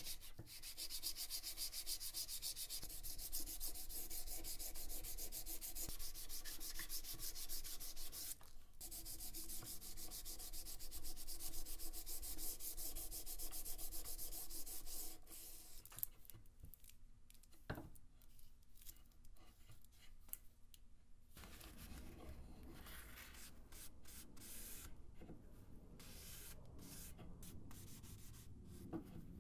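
Sandpaper rubbed rapidly back and forth by hand over a wooden knife handle, a steady scratchy hiss with a short break near 9 seconds, stopping about halfway through. After it come quieter rubbing and a few light ticks, ending in soft rubbing as a paper towel is worked over the wood.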